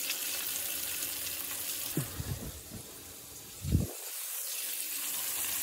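Flour-dredged chicken pieces frying in hot oil in a pan, a steady sizzle, with two dull knocks about two seconds in and again near four seconds in.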